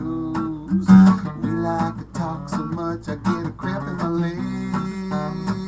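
Steel-string acoustic guitar being strummed, chords played in a steady rhythm with no singing over them.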